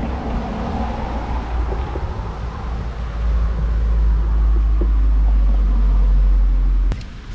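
Steady low rumble that grows louder about three seconds in and cuts off suddenly near the end.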